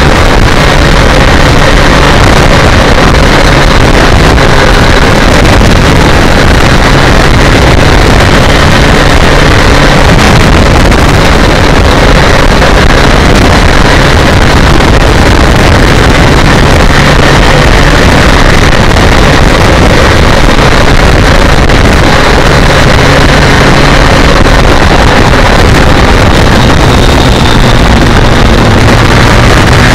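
BMW K1200R Sport's inline-four engine running steadily at road speed, heavily mixed with wind rush over the bike-mounted microphone.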